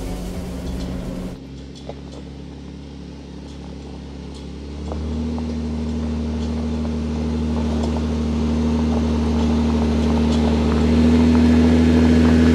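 Jeep Wrangler's engine running at a low steady speed as it crawls over a rocky trail, growing louder from about five seconds in as it approaches, with small clicks of stones under the tyres.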